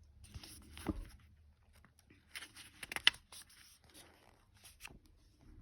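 Rustling and light clicks of oracle cards and their paper guidebook being handled, with a sharp tap about three seconds in.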